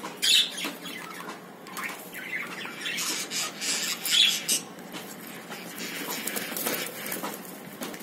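Cockatiels bathing in a shallow tub of water: irregular bursts of splashing and wing flapping, loudest about a third of a second in and again about four seconds in.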